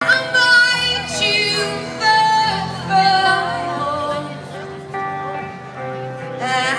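Live rock band with a woman singing lead, heard over the stage PA from the audience. She holds long sung notes with slides in pitch.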